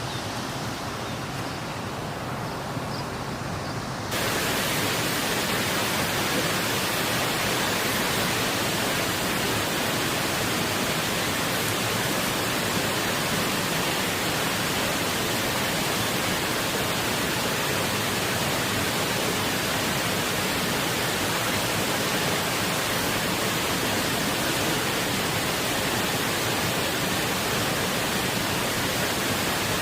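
Steady rush of water pouring over an irrigation weir, jumping louder and brighter about four seconds in.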